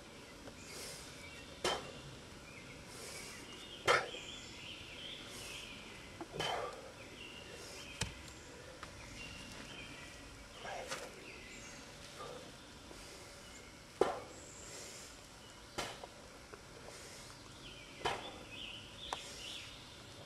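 Short sharp knocks, about one every two seconds, in time with repeated kettlebell cleans, over a steady outdoor background hiss.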